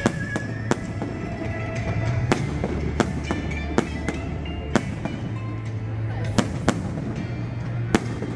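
Aerial fireworks shells bursting overhead in a rapid, irregular series of sharp bangs, about a dozen in eight seconds, over a steady low rumble.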